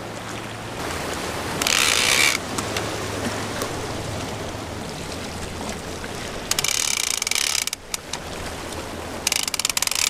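Ratchet clicker of a large conventional saltwater fishing reel buzzing in three short bursts of fast clicks as the line is worked while a slide bait is rigged and sent out.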